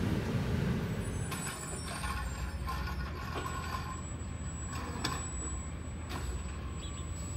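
Rear-loading garbage truck (Wayne Curbtender body on a CCC cab-over chassis) with its engine running steadily at a distance. A few sharp knocks and clanks come at irregular intervals from about a second in.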